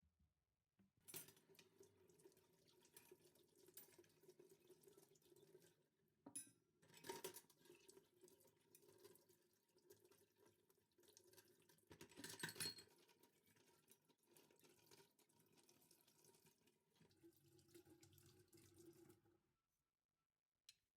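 Water running from a tap into a sink, with louder surges of splashing about a second in, around seven seconds and around twelve seconds, then shut off near the end.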